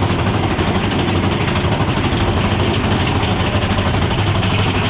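Big Thunder Mountain Railroad mine-train roller coaster rumbling steadily along its track, heard from on board the train.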